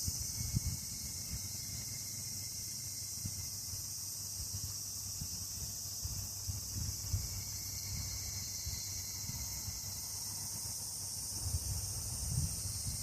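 A chorus of cicadas (semishigure) from woodland: a steady, high-pitched continuous drone. Under it is a low rumble of wind on the microphone, which grows near the end.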